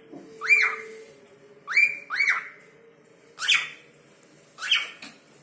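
Cockatiel giving five short calls about a second apart, each sweeping quickly up and back down in pitch.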